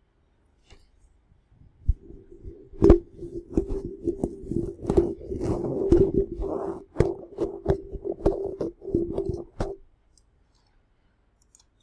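Handling noise picked up directly by a BM800 condenser microphone as its windshield is fitted: a quick run of knocks, clicks and rubbing scrapes with a low hum under them, starting about two seconds in and stopping short about ten seconds in.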